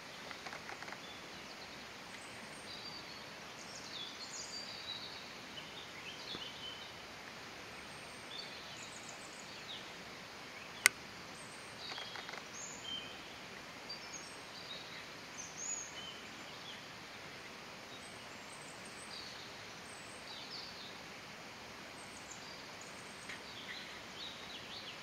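Steady background hiss with small birds chirping now and then, short high calls scattered throughout. One sharp click stands out near the middle.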